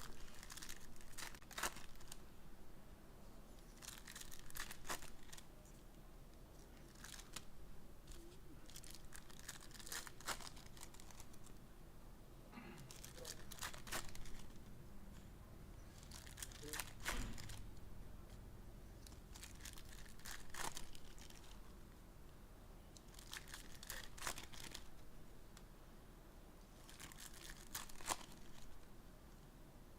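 Trading-card pack wrappers being torn open and crinkled, in short irregular bursts every second or few.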